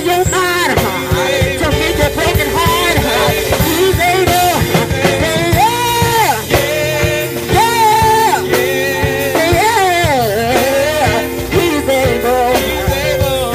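Live gospel band playing through a PA system: a singer's voice holding long notes and bending runs over sustained chords and drums.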